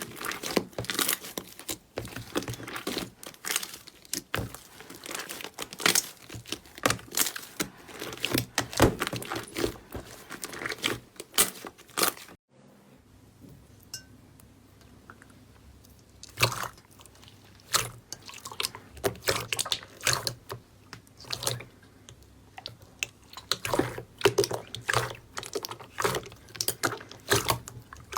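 Slime being squeezed and stretched by hand: a dense run of sticky pops and crackles. It stops abruptly about twelve seconds in, and after a few quieter seconds with a faint low hum the crackling starts again.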